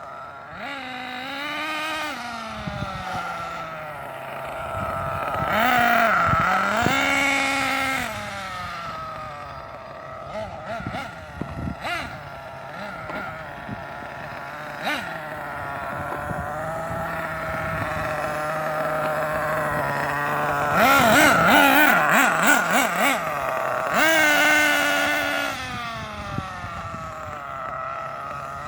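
Losi 8IGHT-T radio-controlled truggy driving around, its motor repeatedly revving up and easing off with a rising and falling whine. The two loudest runs come about six seconds in and again about twenty-one seconds in, the second with a fast warbling pitch.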